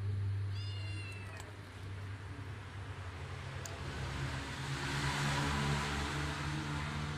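A cat meows once, short and high, about a second in. Underneath runs a steady low hum, which swells along with a rushing noise in the second half.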